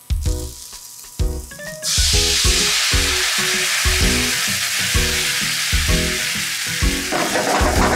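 Sweet vinegar sauce poured into a hot frying pan of sliced new burdock root, bursting into a loud sizzle about two seconds in that keeps going. Background music with a steady beat plays throughout.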